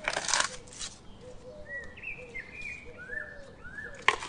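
Giant panda crunching a bamboo shoot: a few loud, crisp crunches at the start and another near the end. Birds chirp faintly in between.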